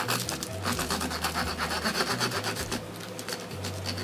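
A knife sawing back and forth through the crisp, oven-reheated crumb crust of a buffalo chicken crunch roll, giving a rapid, continuous crackling crunch. The crackle is the sign of how crispy the outside is.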